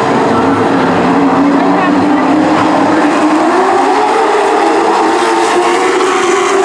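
Pack of racing super trucks running on a short oval, with their engine note rising as they accelerate past.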